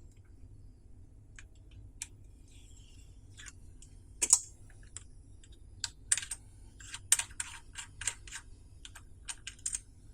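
Light clicks and taps of metal watchmaker's tools on a wristwatch case while its case back is opened with a case-back spanner. A few isolated clicks at first, then a quick irregular run of them from about six seconds in.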